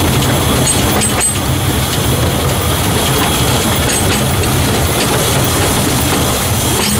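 Narrow-gauge steam locomotive running along the line, heard from its footplate: a steady loud running noise with a couple of sharp rail clicks, about a second in and near the end.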